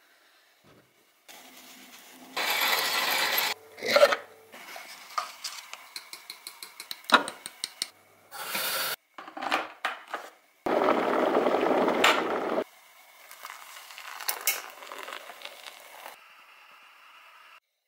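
Kitchen sounds of pour-over coffee being made: clinks and taps of cups and utensils, and a run of small ticks from a wooden hand coffee grinder being cranked. Two louder stretches of rushing noise come in between. Near the end, water is poured from a kettle onto grounds in a paper filter.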